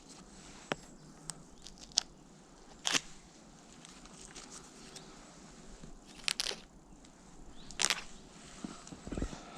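Firewood being gathered in snow: scattered crunches and sharp snaps of twigs and sticks, with steps crunching in the snow, a handful of separate noises a second or two apart.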